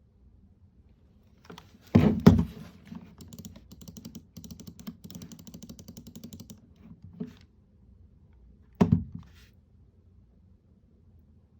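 Small hard plastic parts knocked and handled on a desk: two sharp knocks about two seconds in, a run of fast light clicks and rattling, then single knocks, the loudest near the end.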